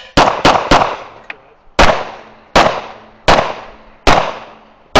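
Glock 17 9mm pistol firing eight shots: three quick ones about a quarter second apart, then five slower ones roughly three-quarters of a second apart, each trailing off in a short echo.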